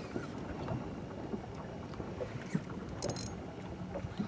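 Water lapping against a small fishing boat's hull, with wind buffeting the microphone. A few light knocks and clicks come and go, and a brief hiss comes about three seconds in.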